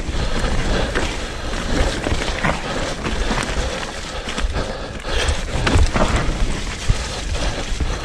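Electric mountain bike riding fast down a leaf-covered dirt trail: tyres rolling and crunching over leaves and soil, with frequent knocks and rattles from the bike over the bumps, and wind rumbling on the microphone.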